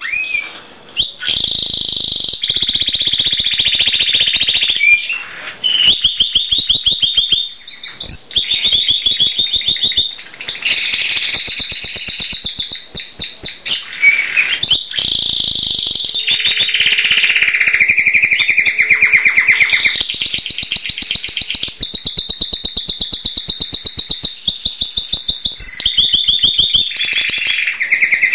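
Spanish Timbrado canary singing its continuous song, a string of fast rolls and trills that shift from one phrase to the next every few seconds with hardly a pause. Sustained full song like this is typical of a cock bird, though the bird was sold as a hen.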